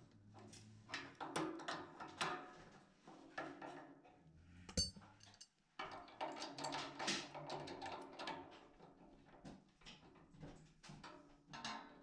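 Metal hand tools clinking and scraping against a brass radiator valve as a wrench and adjustable spanner are fitted and turned on its nuts: a run of irregular short clicks and knocks, with one sharp ringing clink a little before the middle.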